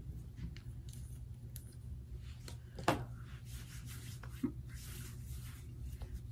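Hands rubbing and patting a hydrating primer into facial skin: faint soft brushing strokes, with a sharp click about three seconds in and a smaller one a little later, over a steady low hum.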